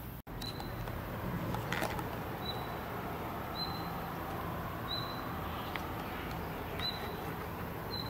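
Steady rush of river water, with a short high chirp repeating every second or two and a few faint clicks; the sound cuts out for an instant near the start.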